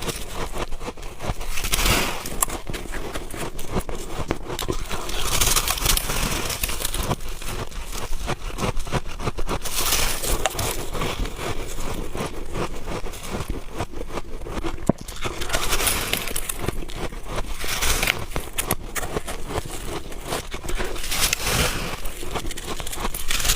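Soft white freezer frost being bitten and chewed close to the microphone: continuous squeaky crunching with a louder bite every few seconds.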